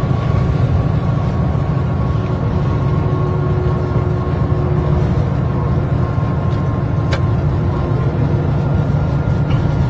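Train running, heard from inside the driver's cab: a steady loud low rumble with a faint whine that fades out about eight seconds in. A single sharp click about seven seconds in.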